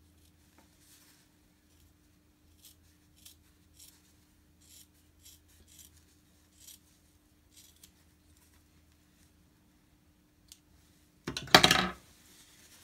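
Fabric rustling and scratching in short, faint strokes as a sewn cotton pocket is turned right side out and its corners are pushed out with the tip of small scissors. Near the end comes a louder, brief clatter and rustle as the scissors are put down on the table.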